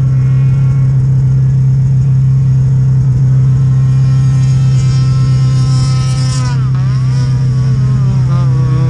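Snowmobile engine running at steady high revs; about two-thirds of the way in the revs drop sharply and climb straight back, and they waver again near the end.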